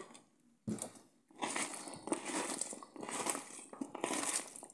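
A hand tossing raw sliced potato and onion rings in sunflower oil in a plastic bowl: wet crunching and rustling of the slices rubbing together, in uneven strokes that start about a second in.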